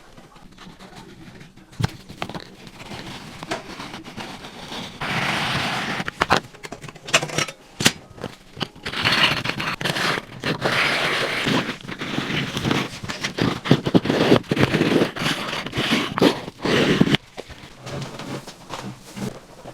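Repeated scraping and rasping strokes from hand work on baseboard trim, with scattered sharp clicks and taps; the scraping stops abruptly a few seconds before the end.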